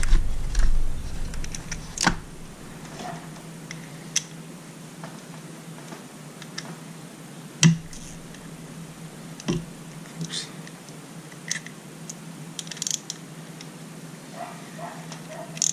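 Scattered small metal clicks and taps of a socket wrench being worked on the reed stop screws of an outboard motor's reed valve block, with three sharper knocks spread through and a quick run of ticks near the end. A faint steady hum lies underneath.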